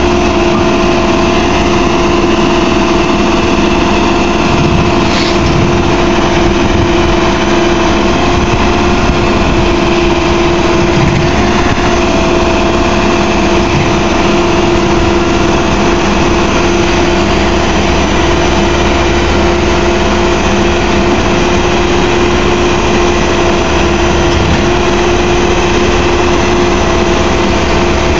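Caterpillar backhoe loader's diesel engine running steadily, with a steady whine over it, while its hydraulic loader and backhoe arms hold the machine up off the ground.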